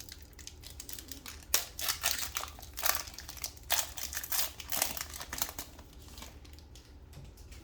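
Plastic trading-card pack wrapper crinkling and tearing as a pack of cards is opened by hand, in a run of uneven crackly bursts that dies away near the end.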